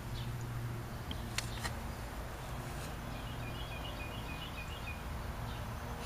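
A steady low hum, with two sharp clicks about a second and a half in and a short run of faint, quick bird chirps near the middle.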